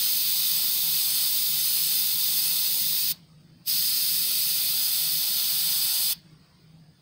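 Airbrush hissing as it sprays paint: one pass of about three seconds, a brief half-second release of the trigger, then a second pass of about two and a half seconds that stops near the end.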